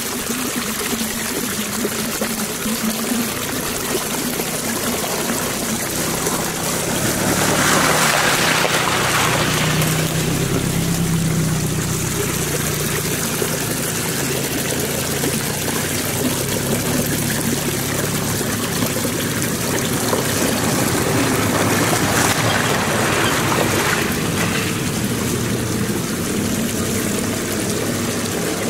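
Small stream splashing and trickling over rocks close by, steady throughout, with the low running of an off-road SUV's engine as it crawls down the rocky creek bed.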